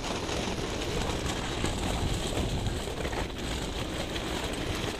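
Wind rushing steadily over the microphone of a camera held out of the window of a moving Toyota 4Runner. Under it runs a low rumble of tyres rolling over creek-bed gravel, with scattered small crackles from the stones.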